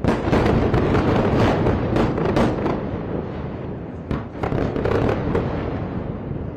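Rapid crackling bangs and pops of explosions going off in a fire after an airstrike, over a continuous rumble. There is a dense run of cracks for the first two and a half seconds and a second run about four seconds in.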